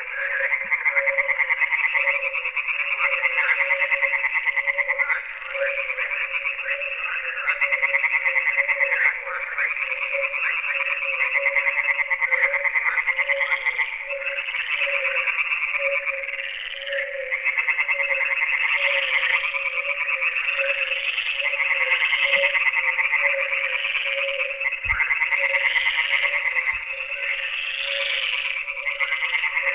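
Dense chorus of many frogs calling at once, their rapid trills overlapping in a continuous wall of sound, with a lower call pulsing evenly beneath. A couple of faint low knocks near the end.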